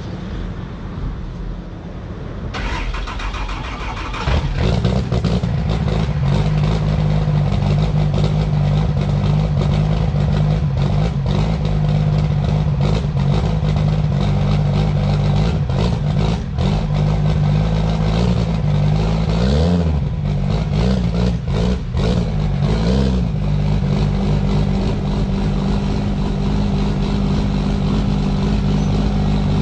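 Cummins diesel drag truck engine cranking and catching about four seconds in, then idling steadily. Three short revs come about two-thirds of the way through.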